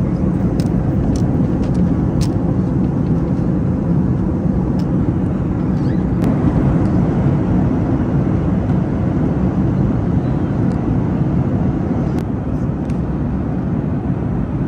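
Steady rumble of jet engines and rushing air heard inside the cabin of a Boeing 737 MAX 8 airliner, with a few faint ticks.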